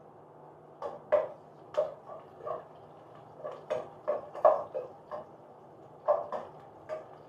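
A metal spoon scraping and knocking against a cooking pot as food is stirred: about a dozen irregular strokes, starting about a second in.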